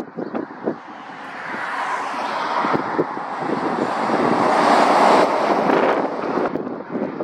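DAF articulated lorry approaching and passing close, its tyre and engine noise building to a peak about five seconds in and then falling away as it goes by. Wind buffets the microphone with low thumps near the start.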